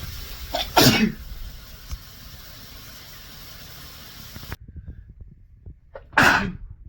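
Two separate sneezes from a person with a cold, each a short sharp burst. The first comes about a second in over a steady hiss. The second comes near the end against a much quieter background.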